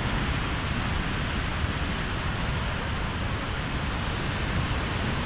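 A swollen, muddy river in flood rushing past in big churning waves: a steady heavy rush of water with a strong low rumble.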